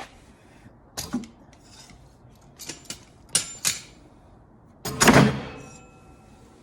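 Sharp metal clicks and clanks from a cabinet jack being handled, then a loud clunk about five seconds in that rings briefly with a metallic tone as it dies away.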